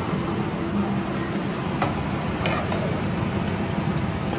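Steady low mechanical hum of kitchen running noise. A steel ladle clinks lightly against an aluminium cooking pot a few times while stirring spinach curry, the last clink near the end.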